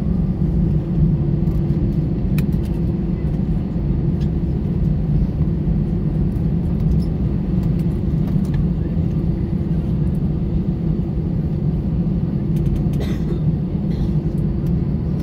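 Steady low rumble and hum inside an Airbus A320 cabin as the airliner taxis to its stand, its engines at idle. A few faint clicks from the cabin sound over it, one near the end.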